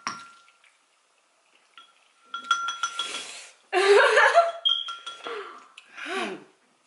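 Chopsticks clicking and clinking against ceramic noodle bowls, then loud, high wordless vocal cries about four seconds in and a falling 'ooh' near the end: reactions to the burn of the extremely spicy noodles.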